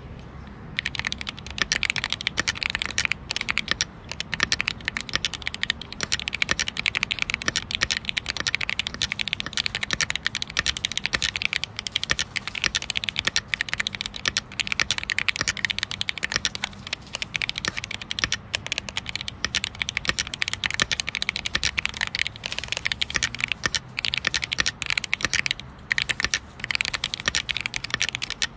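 Typing on an iRocks K104H keyboard: fast, continuous keystrokes that start about a second in, with a few brief pauses.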